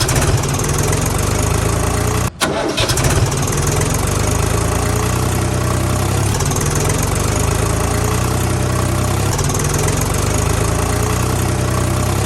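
Tractor engine running steadily, with a brief break about two seconds in.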